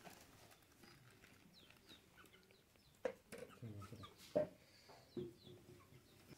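Faint birds chirping in short calls, with two sharp, louder sounds about three and four and a half seconds in.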